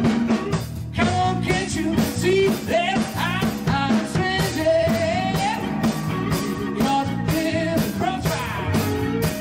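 Rock band playing: electric guitar, bass guitar, keyboards and a drum kit, with a voice singing lead.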